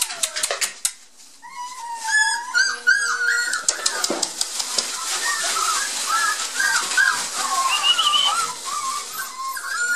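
A litter of Border Collie puppies whining and yelping, many short high calls overlapping, after a brief lull about a second in. Shredded newspaper bedding rustles under them.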